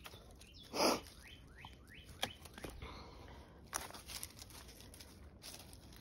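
Rustling and sharp twig snaps in a pile of dry sticks and brush, with a short loud rustle about a second in. A few faint bird chirps with falling pitch follow just after it.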